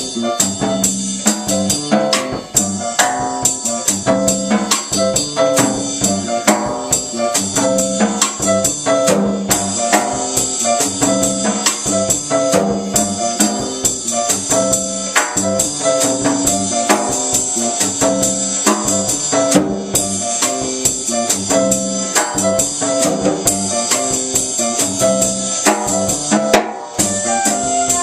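Small salsa band playing a busy up-tempo Latin groove, led by drum kit and electric bass.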